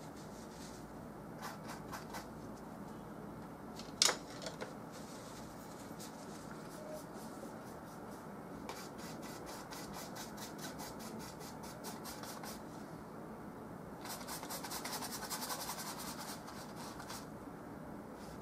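Oil-paint brush rubbing on a canvas panel: a sharp tap about four seconds in, then a run of quick, even strokes, and a few seconds of denser scrubbing near the end.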